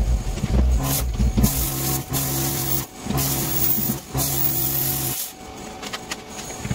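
Hand-held plasma cutter cutting steel plate in several short hissing bursts, each under a second, stopping about five seconds in, over the steady drone of running equipment.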